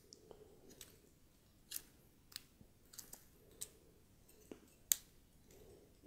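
Faint, irregular small plastic clicks and taps as the rear button plate and backing plate of a Canon EOS M camera are handled and pressed together to clip into place, the sharpest click about five seconds in.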